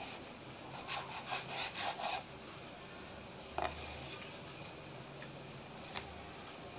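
A knife sawing through a very crispy slice of toasted garlic bread on a wooden cutting board: a crackly, crunching scrape for about a second, then a few light knocks of the knife and bread on the board.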